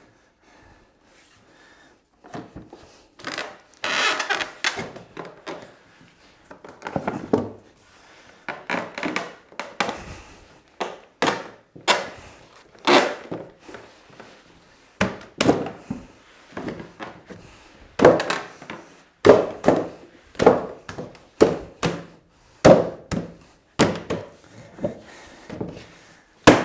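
A 2x4 softwood workbench apron being knocked and pushed down over the leg frames: irregular wooden knocks and thumps with some scraping of timber on timber. The knocks come about once a second in the second half.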